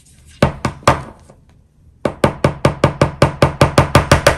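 A quick series of sharp knocks or taps on a hard surface: three about half a second in, then a fast, even run of about fifteen, roughly six a second, lasting to the end.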